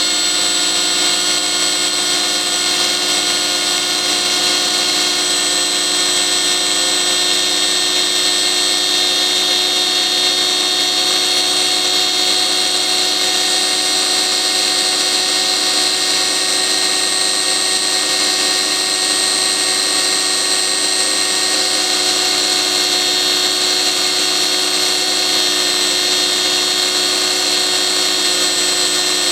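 Pressure washer's electric motor running steadily at full power with a high-pitched whine, its bearings worn and its cooling fins removed so that it overheats toward burnout.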